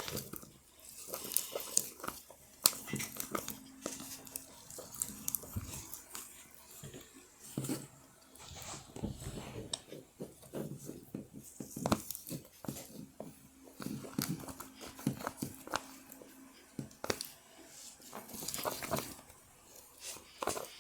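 Sticky homemade Elmer's butter slime being mixed, giving irregular wet squelches, smacks and clicks.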